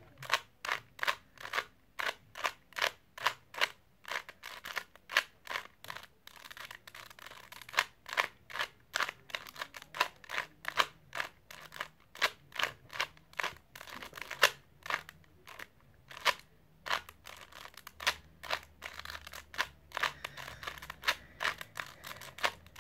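A 3x3 Rubik's Cube's plastic layers being turned over and over, a steady run of sharp clicks, about two or three a second.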